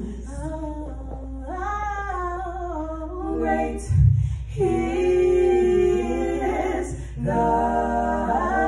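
Three women singing together a cappella through handheld microphones, holding long notes. A brief low thump about halfway through.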